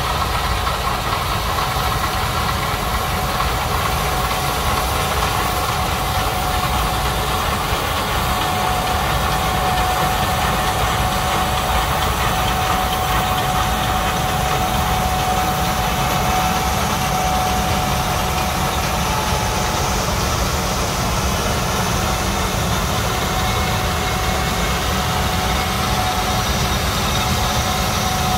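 Gleaner S77 combine harvesting soybeans, its engine and threshing machinery running steadily with a thin steady whine over a low rumble, together with a Massey Ferguson 8732S tractor pulling a grain cart alongside.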